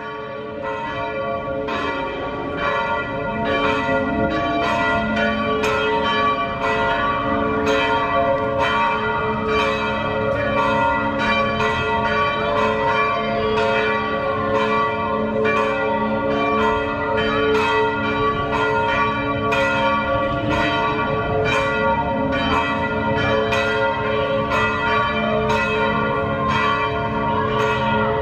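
Church bells ringing in a steady run of strokes, roughly three every two seconds, their tones overlapping and ringing on. The ringing swells up over the first few seconds, then holds level.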